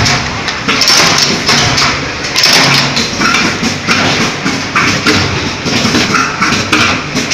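Slipper-factory machinery working: a run of loud, irregular thumps and knocks, roughly one to two a second, over a steady machine noise.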